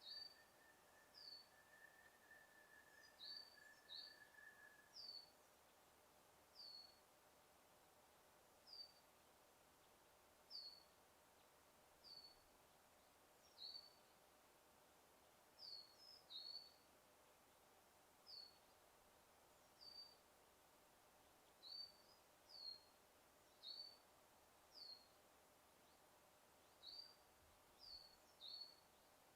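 A small bird repeating a short, high, slightly falling chirp every second or two, sometimes two in quick succession, over a faint steady forest hiss. A thin steady high tone sounds for the first five seconds or so.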